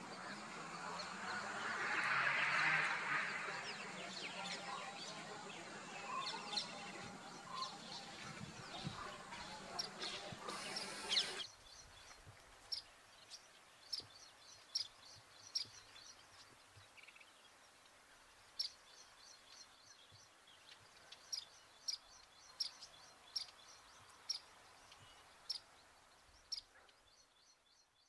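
Indian silverbill (white-throated munia) giving short, high chip calls, repeated at irregular intervals of about a second. A louder patch of background noise comes about two seconds in, and the background drops abruptly about eleven seconds in, leaving the calls clearer.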